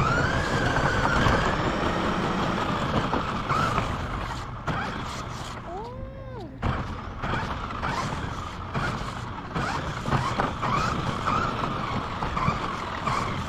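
Radio-controlled car driving over pavement: its motor whine climbs at the start and rises and falls again about halfway through, over steady road and tyre noise with many small knocks and rattles.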